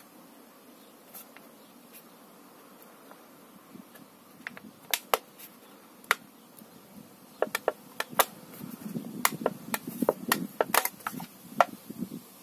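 Fingers working a cotton swab against a hole in a thin aluminium beer can: a run of sharp, irregular clicks and ticks, a few at first and coming thick and fast over the last five seconds.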